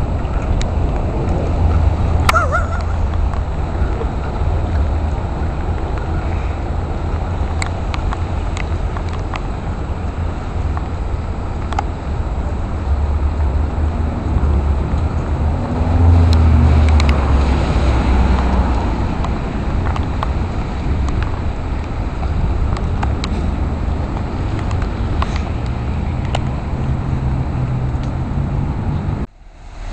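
Steady outdoor noise of a wet street in the rain, with traffic and a low rumble of wind on the microphone; it swells about sixteen seconds in, like a car passing, and drops out for a moment just before the end.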